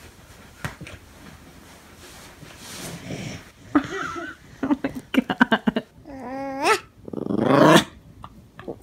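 A dog growling while it plays tug with a crawling baby's clothing. The growls come in a run of short bursts about halfway through, followed by longer, louder growls near the end.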